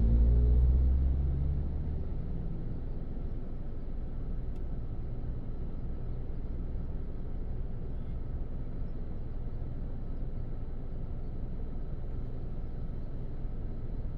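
Car driving on a road, with a steady low rumble of road and engine noise. At the start there is a louder rumble with a rising tone that dies away within about two seconds, then a steady drone.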